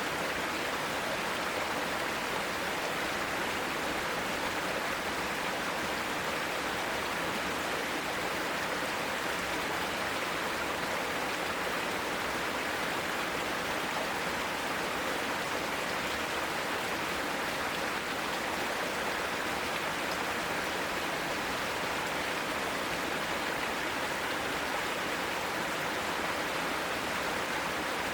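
Mountain stream flowing steadily: an even, unbroken rush of water.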